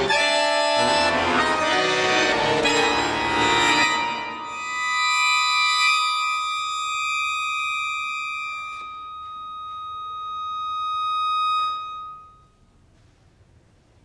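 Chromatic button accordion playing a fast, dense passage, then holding a high chord for several seconds that swells and cuts off sharply about twelve seconds in, leaving near quiet.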